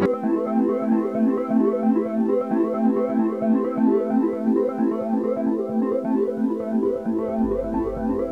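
Background music: a synthesizer or electric keyboard playing quick repeating notes, with a low bass part coming in near the end.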